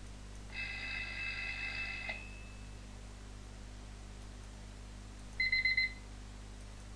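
Sample alarm sounds from Atomic Alarm Clock played on a computer. First the Alarm.wav sound: several steady high tones together for about a second and a half. About three seconds later comes the louder Beep.wav: a quick run of about five high beeps within half a second.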